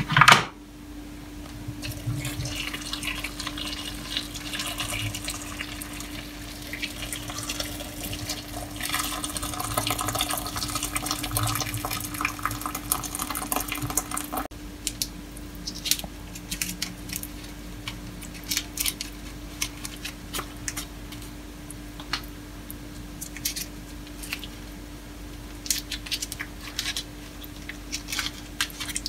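A sharp knock, then water poured from an electric kettle into a slow cooker of stew, a splashing pour of about twelve seconds that stops suddenly. After it come scattered light ticks as hands work over the pot, with a steady low hum underneath.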